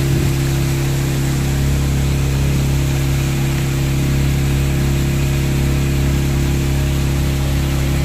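Speedboat engine running steadily with the boat under way, a constant even drone that holds one pitch, over a steady hiss.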